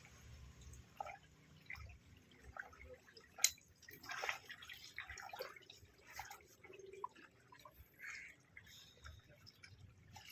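Faint water sounds: small irregular splashes and drips, with one sharp click about three and a half seconds in.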